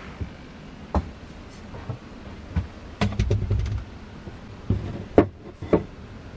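A handful of sharp wooden and metal knocks and clunks as a restored axe is handled and set against a wooden wall among other hand tools, with a brief low rumble of handling in the middle.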